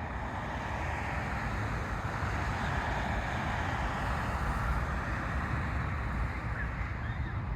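Steady outdoor rushing noise with a fluttering low rumble of wind on the microphone.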